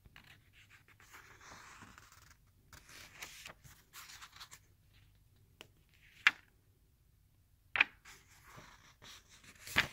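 Book pages being handled and turned by hand: soft paper rustling and sliding, then a few sharp paper flicks in the second half.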